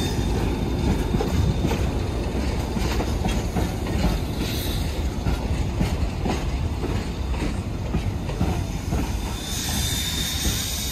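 Narrow-gauge heritage passenger carriages rolling past: a steady rumble with wheels knocking over the rail joints. Near the end, a hiss of steam rises as the steam locomotive comes by.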